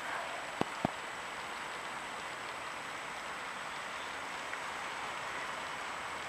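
Steady hiss of distant street traffic with trams passing, a faint steady high whine under it, and two sharp clicks about a quarter second apart near the start.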